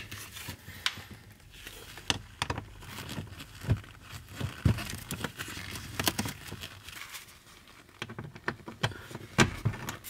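Scattered clicks, taps and light scraping of hand work on car interior trim: small Torx screws being turned out and the plastic lower dash panel being handled and pulled free.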